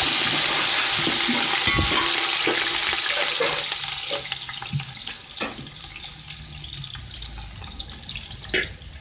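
Sliced red onions frying in hot oil: a loud sizzle that eases to a softer, steady frying after about four seconds, with a few light knocks.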